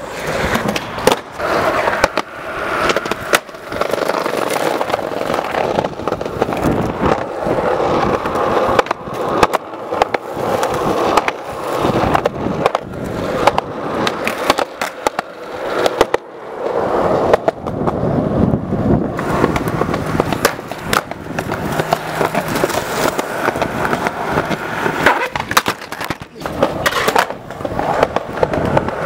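Skateboard wheels rolling over concrete, with sharp clacks from the board being popped and landed again and again.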